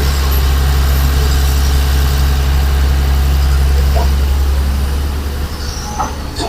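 Heavy diesel engine of an excavator or dump truck running steadily with a deep, even hum that eases off about five seconds in.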